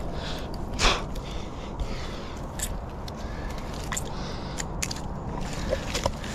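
Hands scraping and knocking against rough tree bark while climbing: irregular scrapes and clicks, the loudest about a second in, over a steady low rumble.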